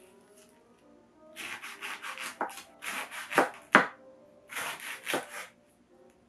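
Kitchen knife sawing through passion fruit rind on a wooden cutting board: three runs of quick rasping strokes, with two sharper knocks near the middle.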